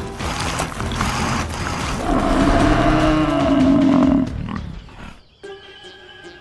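Cartoon bull-bulldozer character giving a long, straining roar as it pulls, after a stretch of low rough rumbling; the roar fades out about four seconds in.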